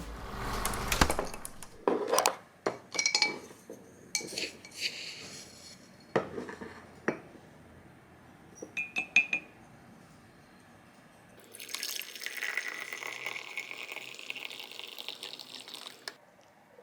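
Glass and dishes clinking and knocking, with a quick run of four ringing clinks midway, then water running for about four seconds near the end.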